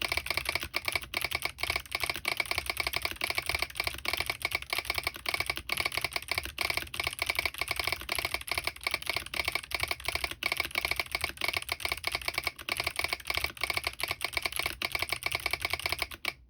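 Fast, continuous typing on a Smurve80 mechanical keyboard with clicky Kailh Box Jade switches, an aluminium plate, no foam and its solenoid switched on, a rapid run of sharp clicks per keystroke. The typing stops suddenly just before the end.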